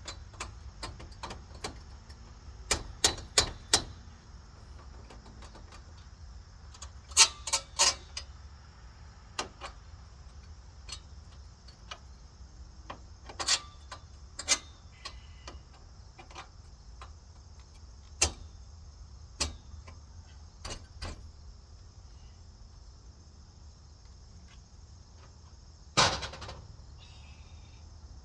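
Irregular knocks and clanks of work on metal parts, some in quick runs of three or four, with one louder knock near the end that rings briefly. Behind them runs a steady faint high chirring.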